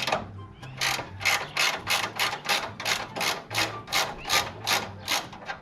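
Ratchet wrench worked back and forth in quick, even strokes, about three a second, unfastening a trunk latch mechanism.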